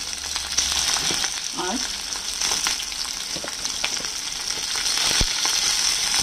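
Onion pieces and capsicum chunks sizzling steadily in hot oil in a kadai, with scattered small pops and crackles.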